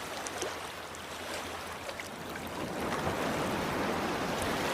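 Steady rushing water sound, swelling louder about three seconds in.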